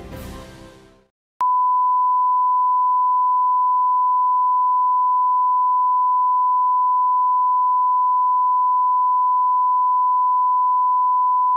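Closing music fades out, and after a brief silence a single steady test tone comes on about a second and a half in and holds without change. This is the colour-bars tone of a TV station that has gone off the air at closedown.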